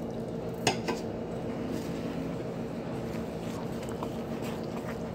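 A wooden spoon stirring milk into flour in a plastic bowl, faint under a steady low hum. There are two light knocks about a second in.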